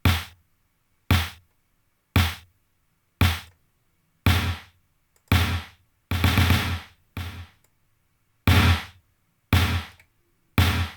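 Programmed drum groove from Superior Drummer 3, with acoustic kit samples layered with electronic drum-machine sounds. It plays as single heavy hits about once a second, each with a deep thump and a short decaying tail.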